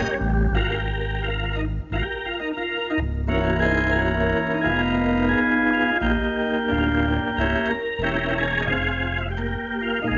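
Two-manual electric organ playing a slow gospel song: sustained chords over bass notes that change every second or so, with a brief break about two seconds in.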